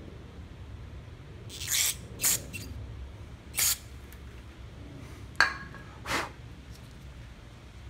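Aerosol carburetor cleaner hissing out through an extension straw in about five short spurts, one opening with a sharp click, blowing out the air bleed passages of a small Briggs & Stratton lawnmower carburetor.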